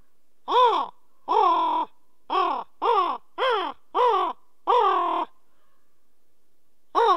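Raven calling: a run of seven caws over about five seconds, each rising and falling in pitch, the second and last of the run longer, then one more caw near the end.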